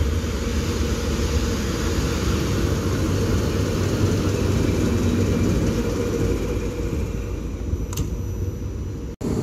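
SM42 diesel shunting locomotive running its diesel engine as it moves close by, a steady low rumble.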